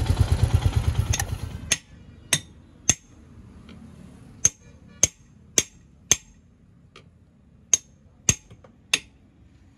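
A motorcycle engine running with a fast even beat cuts off suddenly about a second and a half in. Then come about ten sharp metal hammer strikes with a ringing edge, in irregular groups. These are heard during roadside repair work on the punctured motorcycle tyre.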